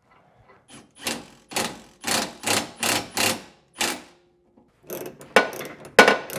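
Hand ratchet wrench clicking in quick strokes, about two a second, with sharper clicks near the end, as the lower mounting bolt of a Bilstein 5100 rear shock is run down snug, not yet torqued.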